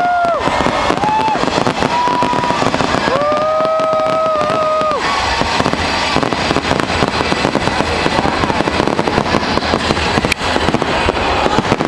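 Fireworks display bursting and crackling in a dense, continuous barrage. A few steady tooting tones sound over it in the first five seconds, the longest lasting nearly two seconds.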